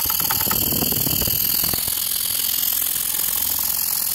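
Stuart 10V single-cylinder model steam engine running fast on compressed air, freshly oiled: a rapid, even exhaust beat over a steady hiss of air.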